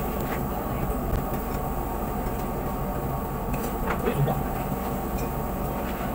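Steady mechanical drone of restaurant ventilation, with background voices and a few light clinks of chopsticks against dishes, the clearest about four seconds in.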